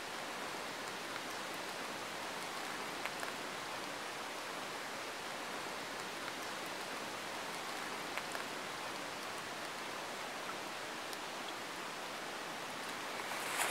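Steady, even hiss with a few faint ticks.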